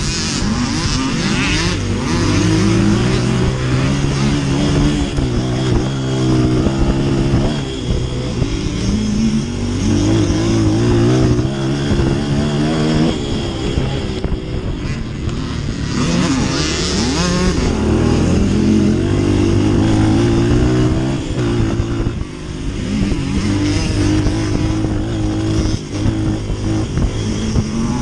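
Dirt bike engine running hard under the rider, its pitch climbing as it revs and dropping back, over and over.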